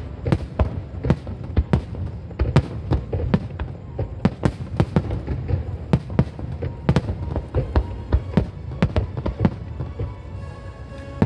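Fireworks display bursting in rapid, irregular succession: many sharp bangs and cracks, several a second, over a continuous low rumble, with music playing underneath.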